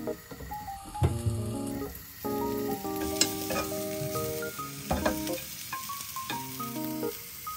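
Sliced sausage pieces sliding off a wooden cutting board into a frying pan of hot oil and sizzling, while a wooden spoon stirs them and the pan is tossed, with a few knocks of spoon and pan. Soft background music with a gentle melody plays throughout.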